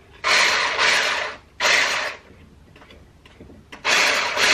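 Electric hand blender with a whisk attachment whipping milk and cheesecake mix in a pot, run in short bursts of about half a second to a second. It stops for nearly two seconds in the middle and starts again near the end.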